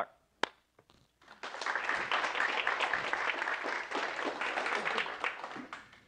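Audience applauding: many hands clapping together, starting about a second and a half in and dying away near the end.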